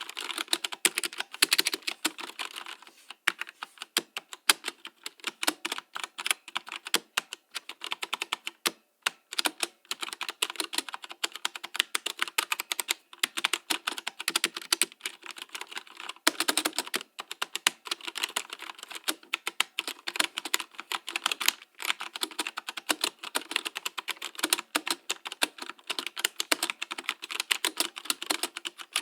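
Fast, continuous typing on a mechanical keyboard: a dense, irregular stream of key clicks, with a few short pauses between bursts.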